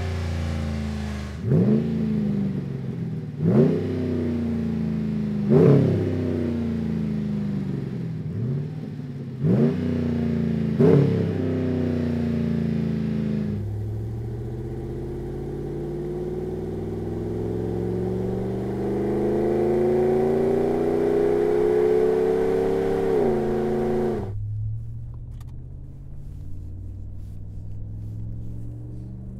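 Ram 1500's 5.7L Hemi V8 exhaust. It is revved in about six sharp blips. Then, through the Flowmaster FlowFX straight-through muffler, it pulls under acceleration with the pitch climbing steadily for about ten seconds before a quick drop, and near the end it is heard from inside the cabin as a quieter, lower, steady drone while cruising.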